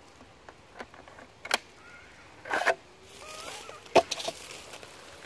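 A few sharp clicks and knocks from a plastic cordless chainsaw being handled, the loudest about four seconds in. The saw's motor is not running.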